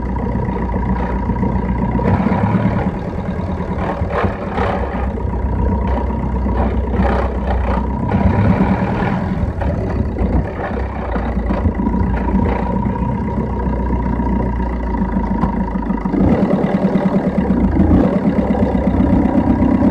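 Car engine running with the car under way, heard from inside the engine bay, with a thin steady whine over the rumble and a few light clicks; it grows louder late on. The owner hears a fault noise from the engine only once it reaches about 2000 rpm.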